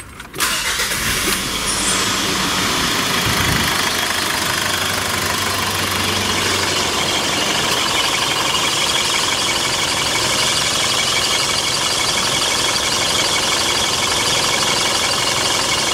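Mitsubishi Pajero Sport's engine starting about half a second in, then idling steadily. Its automatic gearbox pump drives the old transmission fluid out through a hose during a full fluid exchange, and the fluid pours into a plastic bottle with a steady hiss.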